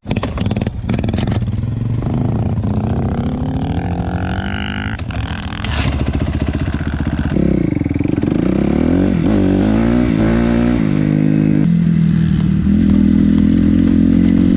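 Dirt bike engine under way on a trail, its pitch climbing as it accelerates, dropping and rising again through the gears around the middle, then holding steadier near the end.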